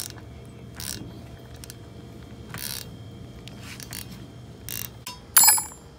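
Wrench and Allen key on a sway bar end-link nut, backing it off: a few scattered ratchet-like metal clicks. About five and a half seconds in, a loud metallic clink that rings briefly.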